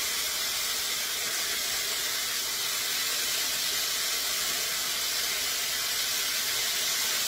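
Strips of marinated tri-tip steak sizzling steadily in a hot frying pan as they sear.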